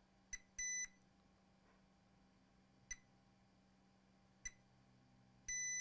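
Digital multimeter in diode mode beeping as its probe touches capacitor pads on an iPad logic board during a check for short circuits: several very short chirps and two longer beeps of about a quarter to half a second each, one about half a second in and one near the end.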